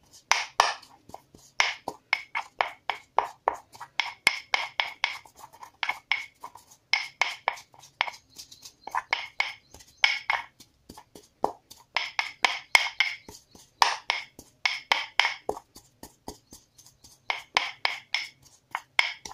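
A pestle pounding in a mortar, crushing guduchi leaf paste mixed with lime and rock salt, in quick runs of strikes, several a second, with short pauses between runs. Each strike rings briefly.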